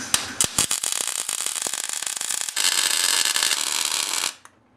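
MIG welder crackling while tack-welding a steering box mount to the frame rail: a few short sputtering starts, then a steady crackling bead of about three and a half seconds that stops abruptly near the end.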